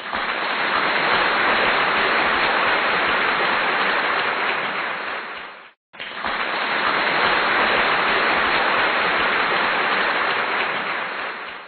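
Crowd applause as an added sound effect, played twice in a row. Each round of clapping is about six seconds long, starts at once and fades out, with a brief break about halfway.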